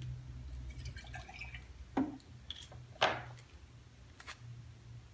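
Small clicks and rustles of cups and plastic packaging being handled at a dinner table, with two sharper knocks about two and three seconds in, over a low steady hum.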